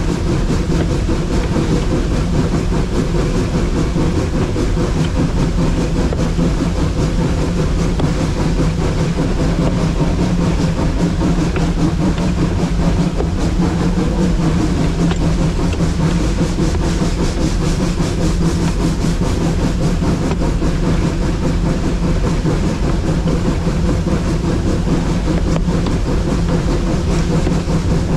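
Puffing Billy narrow-gauge train running steadily along the track, a continuous rumble of wheels on rail.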